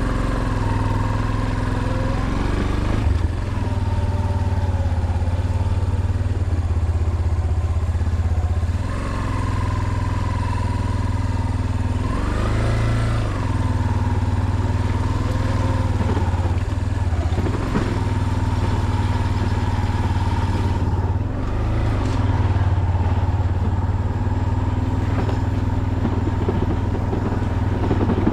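Motorcycle engine running while being ridden, its pitch rising and falling several times with the throttle.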